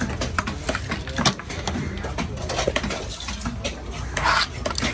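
A long chopping knife knocking and scraping against conch shells and a wooden chopping block: a quick, irregular run of sharp taps and clicks, with a short scrape about four seconds in.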